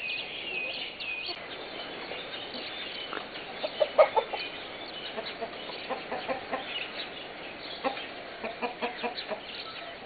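Chickens clucking, with high chirps in the first second or so, one loud squawk about four seconds in, and a quick run of clucks, about three a second, near the end.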